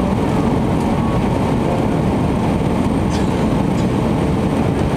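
Steady engine and airflow noise of an Airbus A320-family airliner, heard inside the passenger cabin on final approach with the flaps extended.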